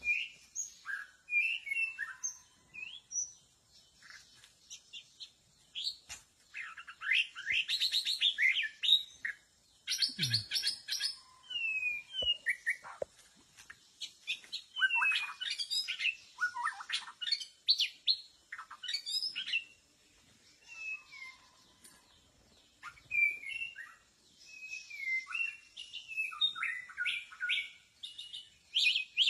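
White-rumped shama singing a varied song of clear whistled phrases, slurred glides and fast rattling trills, in bursts separated by short pauses.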